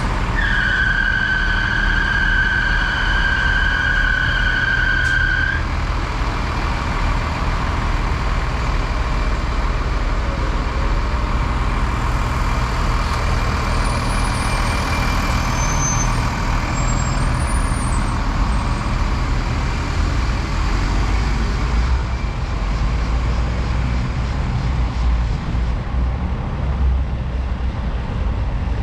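Street traffic running past with a steady low engine rumble. A steady high tone is held for about five seconds near the start, then stops sharply.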